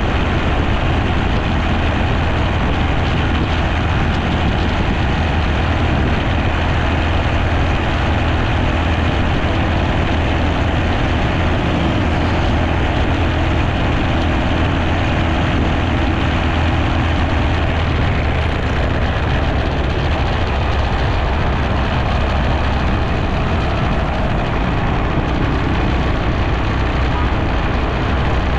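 Steady rush of wind on the microphone of a camera mounted on a moving motorcycle, with the bike's engine running underneath as it rides at a constant pace through city traffic.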